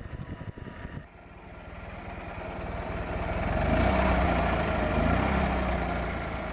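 Ural sidecar motorcycle's boxer-twin engine running, coming in after about a second and growing louder, with two brief rises in pitch as it is blipped, then easing off.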